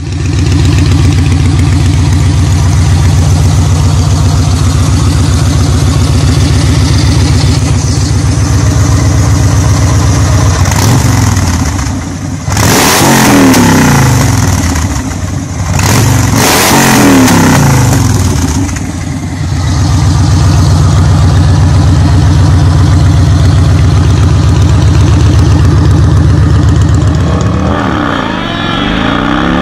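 V-twin cruiser motorcycle with chrome drag pipes idling loud and steady, then revved in a series of throttle blips that rise and fall, before settling back to idle. Near the end a motorcycle engine winds up in pitch under acceleration.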